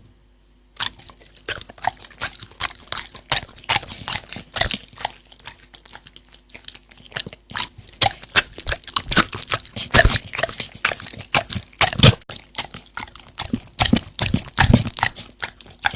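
An animal chewing and crunching food, with many irregular crunches starting about a second in.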